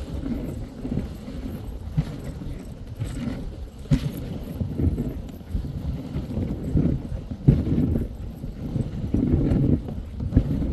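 Dog sled underway on a trail: an uneven low rumbling and bumping of the sled over the track, with a few sharp knocks.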